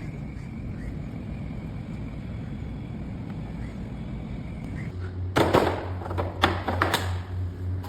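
A steady low rumble. About five seconds in, a low steady hum starts, together with a quick run of sharp knocks and clatters, which are the loudest part.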